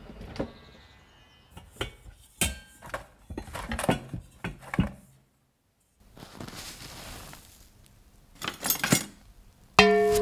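Scattered small clicks, taps and scrapes of hard objects, broken by a moment of total silence midway, then a soft hissing rub for about two seconds. Near the end a metal object is struck once and rings on with several clear, steady tones, like a small bell or bowl.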